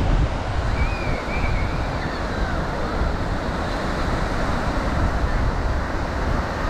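Ocean surf washing onto a sandy beach in a steady wash, with wind buffeting the microphone in a heavy low rumble.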